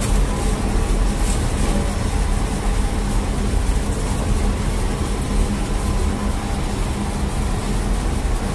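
Bakery machinery running: a loud, steady, low hum and rumble with a faint whine, from the dough machines and oven.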